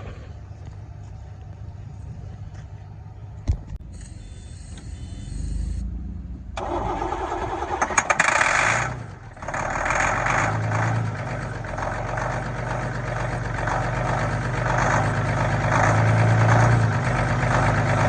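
Mercedes-Benz Unimog diesel engine starting: after a click it cranks and catches about six seconds in, flares up briefly, then settles into a steady idle.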